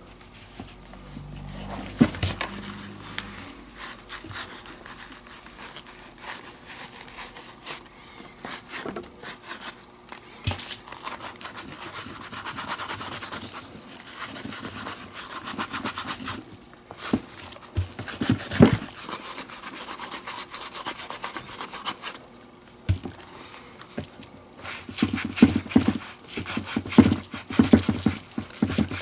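A stiff brush scrubbing the inside lining of a leather baseball glove, back and forth, working dust and sand out of the pocket and finger stalls. The strokes come in runs, faster near the end, with a few sharp knocks as the glove is handled.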